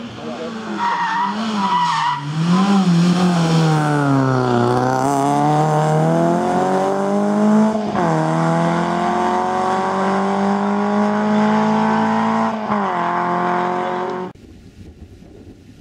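Small-engined rally car (1400 cc class) driving a stage: the engine's revs rise and fall through the first few seconds, then climb steadily through the gears, with gear changes about eight seconds in and near thirteen seconds. The sound cuts off suddenly about fourteen seconds in.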